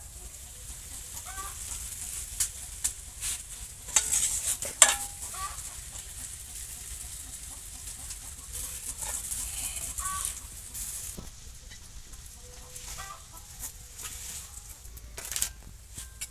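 Chickens clucking now and then, over the rustle of banana leaves and clinks from a steel plate being handled. The sharpest clicks come about four to five seconds in and again near the end.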